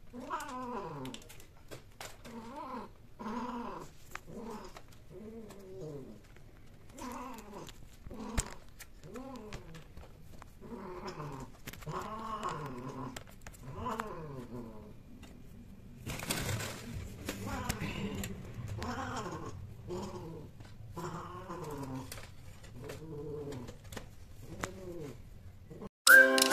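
Domestic cat meowing over and over in long, drawn-out calls, about one a second, each bending in pitch. A short noisy rush comes about two-thirds of the way through.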